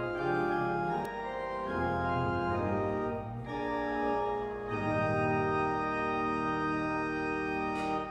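Church organ playing sustained chords that change every second or so, then holding one long chord through the last three seconds.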